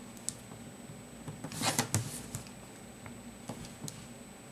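A plastic ruler and a pencil handled on paper: a short scraping rub about a second and a half in, and a few light clicks and taps.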